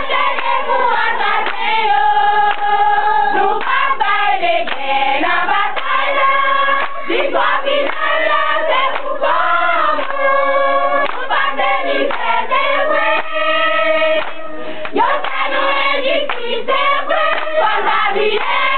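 A group of women singing together in chorus, with hands clapping along throughout.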